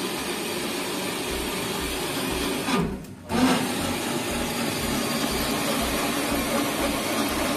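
Small metal grain mill grinding granulated sugar into powder, a steady rasping grind that stops briefly about three seconds in and then carries on.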